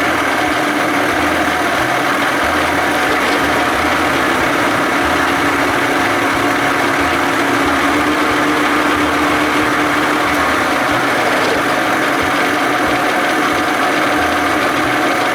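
A 40 hp Johnson two-stroke outboard motor idling steadily at about 1200 RPM.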